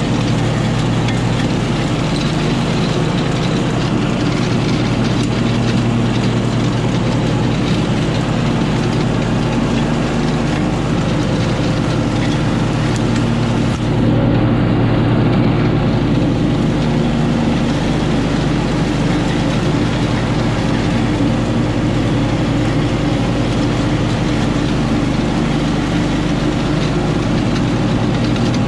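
Husqvarna Rider ride-on mower's engine running steadily with the cutting deck engaged, mowing tall rough grass and weeds. About halfway through it gets briefly a little louder and duller.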